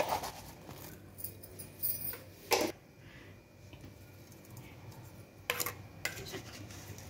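A few short clinks and taps of kitchen utensils as spices are spooned into a cooking pot. The loudest comes about two and a half seconds in, with a softer one just before it and another about five and a half seconds in, over a faint steady hum.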